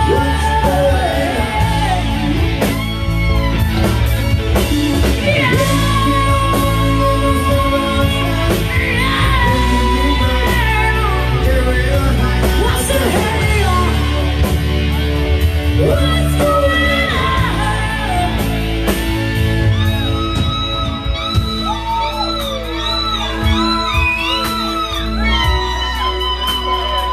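A live rock band playing loud, with a woman singing lead over electric guitar, bass guitar, drums and keyboards.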